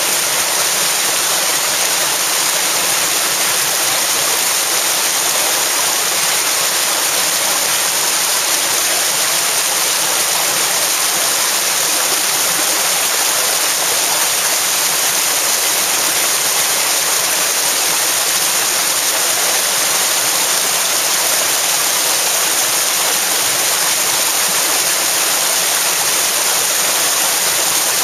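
Fast river rapids rushing over rocks: a steady, loud rush of water.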